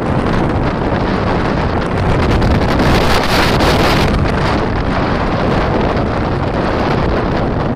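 Loud wind buffeting the microphone, a steady rushing rumble that swells about three seconds in.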